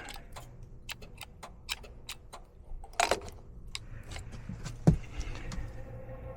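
Light clicks and taps of hands working at a furnace, with a louder clack and rustle about three seconds in and a heavy thump near five seconds. Just after the thump a steady hum with several tones sets in.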